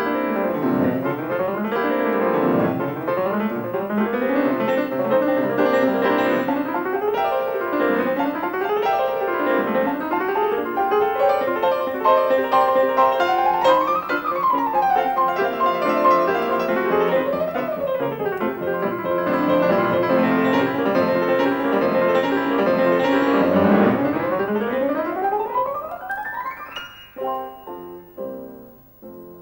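Grand piano playing a fast classical étude: rapid running passages sweep up and down the keyboard. Near the end a long rising run leads into a few short closing chords that fade away.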